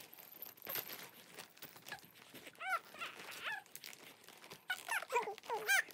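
Young baby cooing and squealing in short high-pitched calls that rise and fall, two around the middle and several in quick succession near the end. Faint rustling of soft toys being gathered up comes earlier.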